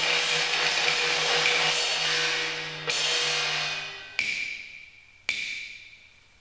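Cantonese opera percussion of gongs and cymbals: a rapid run of strikes that slows into three single strikes about a second apart, each left to ring and fade.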